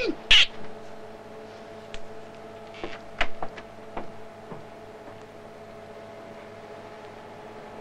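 Steady electrical hum of computer-room machinery with two constant tones under it. A short loud burst of noise comes just after the start, and a few scattered footsteps on a hard floor fall between about two and four and a half seconds in.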